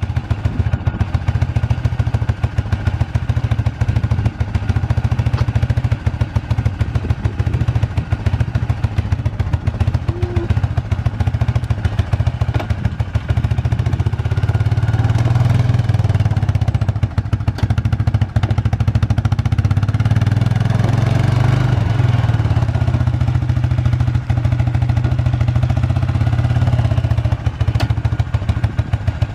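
Arctic Cat 400 ATV's single-cylinder four-stroke engine running with a rapid, even putter at idle, rising louder through the middle as it is throttled up and ridden, then easing back.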